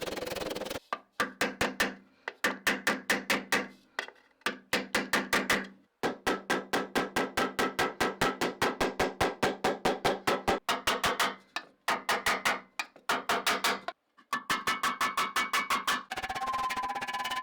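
A fast run of sharp taps, about seven a second, in runs of a few seconds with short pauses between.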